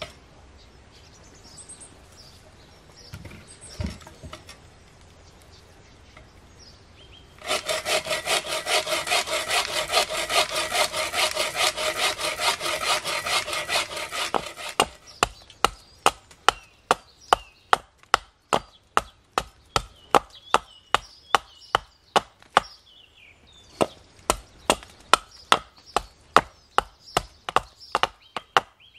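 A bow saw cutting through a birch log in quick rasping strokes for about seven seconds, starting about seven seconds in. Then a hatchet striking the wood in a steady run of sharp blows, about two a second, with a short pause partway through.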